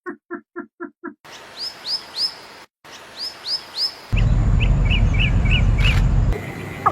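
Calls of several different birds in quick succession. First comes a fast run of about seven short calls, then high, down-slurred chirps repeated every half second or so, then from about four seconds in a run of five short chirps over a loud low rumble.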